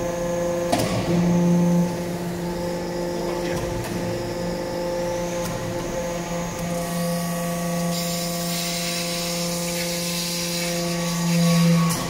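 Hydraulic metal-chip briquetting press running: the steady hum of its hydraulic power unit, swelling louder briefly about a second in and again near the end. A click just under a second in, and a hiss from about eight seconds on.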